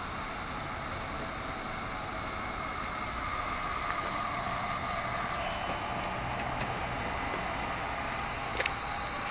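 Steady hiss and hum of a car rolling slowly on asphalt, with a faint whine that shifts in pitch about halfway through. Two faint clicks come near the end.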